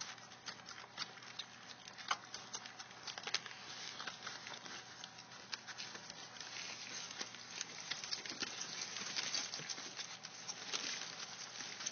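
Litter of three-week-old pitbull puppies nursing: a dense, continuous run of small suckling clicks and smacks.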